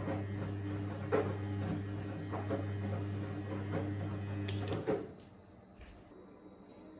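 A small electric appliance runs with a steady low hum, and a few knocks and clinks of kitchen things sound over it. The hum cuts off about five seconds in.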